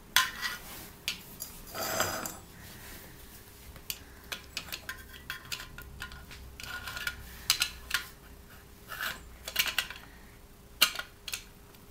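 Light metal clinks and knocks, with a short scrape about two seconds in, as the lit solid-fuel burner tray is slid into the firebox of a Mamod TE1A tin-plate steam traction engine and the model is handled. The knocks come irregularly, the loudest near the start and near the end.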